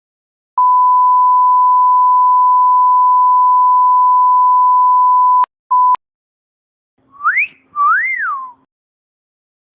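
Censor bleep: a steady pure beep held for about five seconds, then a short second beep. Then a two-note wolf whistle, the first note sliding up, the second rising and falling.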